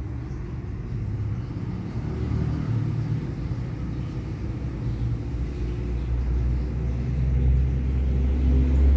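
Low, steady rumble of background noise with no clear events, growing louder near the end.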